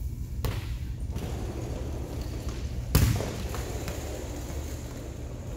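Volleyballs thumping on the gym floor and off hands, with one sharp smack about half a second in and a louder one about three seconds in, over a steady low hum.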